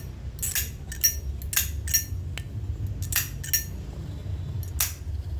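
Zippo Armor lighter's thick brass lid flicked open and snapped shut again and again: sharp metallic clicks with a short ring, mostly in close pairs. The thick case keeps the sound moderate rather than loud.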